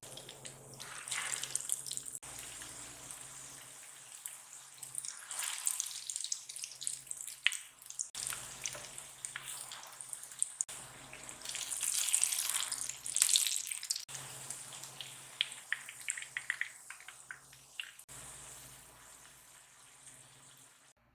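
Kitchen work with running or splashing water and small clicks and knocks, in a series of short clips that cut off abruptly one after another.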